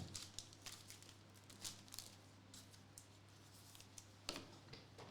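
Faint handling noise of trading cards and paper: scattered soft clicks and rustles, with a sharper knock about four seconds in, over a low steady hum.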